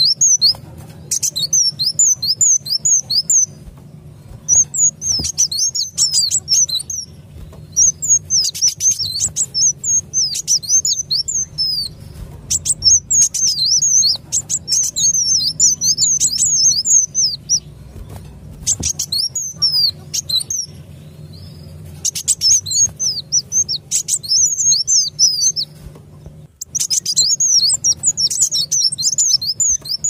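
Sunbird (kolibri wulung) lure call: bursts of rapid, high, sharp chirps, each burst lasting a few seconds with short pauses between. A faint steady low hum runs underneath.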